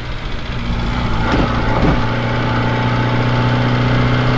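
Reliant Regal three-wheeler's four-cylinder engine running steadily on the move, heard from inside the car.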